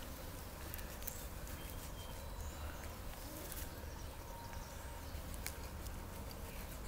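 Flies buzzing faintly over a low steady rumble, with a few brief clicks.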